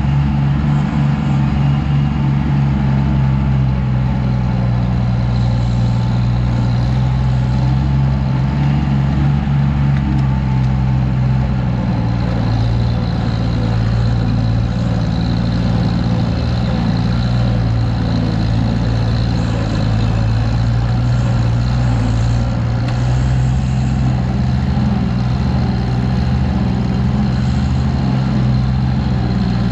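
Farm tractor engine running steadily while the tractor is driven, heard close up from the driver's seat.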